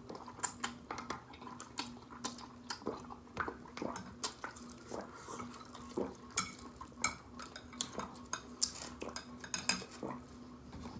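Eating utensils clicking and scraping against dishes, with many irregular sharp clicks, while food is stirred and picked up. A faint steady hum runs underneath.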